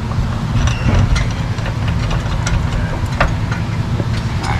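A steady low mechanical rumble of a running motor, with scattered light metallic clicks and clinks.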